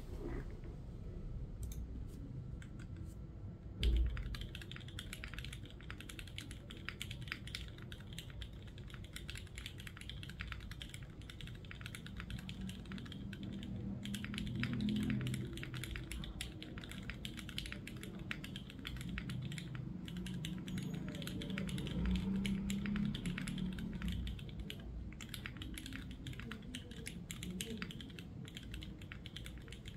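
Typing on a Neo65 mechanical keyboard with Cherry Hyperglide Black linear switches on a carbon-fibre plate, no foam, and PBT keycaps. After a single thump about four seconds in, a steady stream of key clacks follows.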